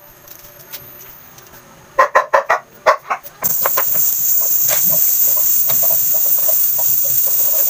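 Chef's knife chopping a red onion on a plastic cutting board: a quick run of sharp chops about two seconds in, then lighter taps. From about three and a half seconds a steady high hiss sets in and is the loudest thing.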